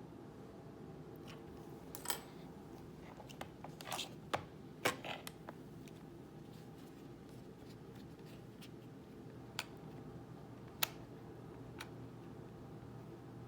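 Scattered plastic clicks and handling of a Flysky i6x radio-control transmitter, a cluster of them in the first few seconds and single clicks later, over a faint steady low hum. The transmitter is faulty and will not turn on.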